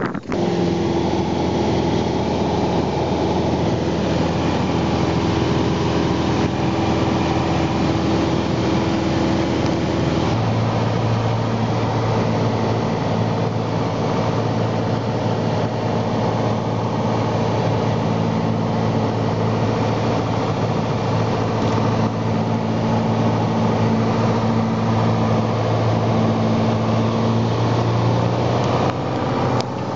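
Piper four-seater light aircraft's piston engine running steadily, its note changing abruptly about ten seconds in as the engine speed changes.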